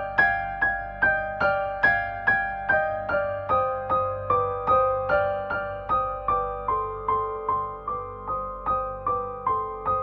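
Background music: a soft keyboard melody of evenly spaced single notes, a little over two a second, each note fading before the next.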